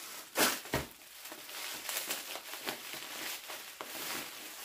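Plastic bubble wrap crinkling and rustling as it is pulled apart and off a small box, with two sharp crackles about half a second in.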